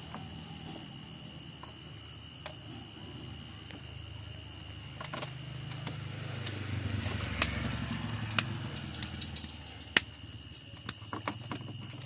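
A motor vehicle's engine running, its low rumble swelling through the middle and fading, with a few sharp clicks and a steady faint high tone.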